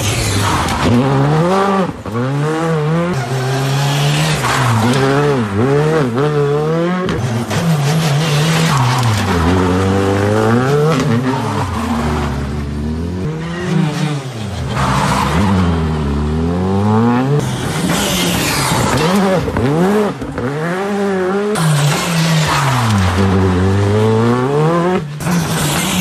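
Rally car engines driven hard as several cars pass one after another, each revving up and dropping back sharply through gear changes, again and again.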